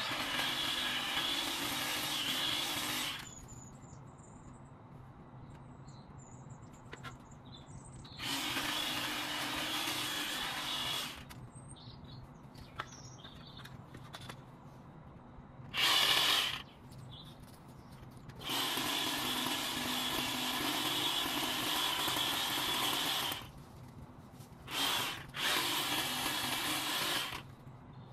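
Electric power tool running in six bursts, from under a second to about five seconds long, with short pauses between them. Birds chirp faintly in the pauses.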